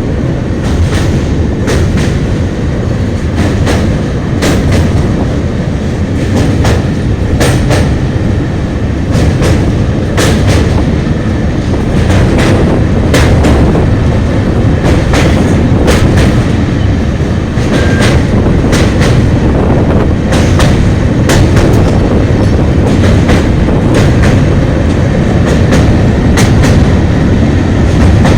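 Indian Railways LHB passenger coaches running past at speed: a loud, steady wheel-on-rail rumble with sharp clacks about once a second.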